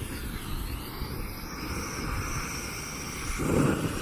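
A small lit firework hissing steadily as it burns in a gloved hand, with wind rumbling on the microphone; about three and a half seconds in the flame flares up with a louder rushing swell.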